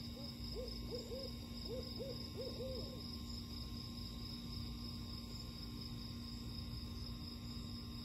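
An owl hooting: a quick run of about nine short hoots in small groups over roughly three seconds, each note rising and then falling in pitch.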